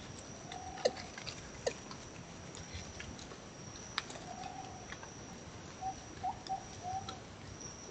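Coatis rooting through dry forest leaf litter: scattered crackles and snaps of leaves, under a steady thin high-pitched drone. A few short soft calls come about half a second in, around four seconds in, and in a quick run of four near the end.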